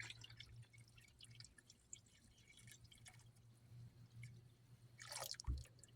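Near silence: faint scattered ticks over a low steady hum, with a brief slightly louder rustle about five seconds in.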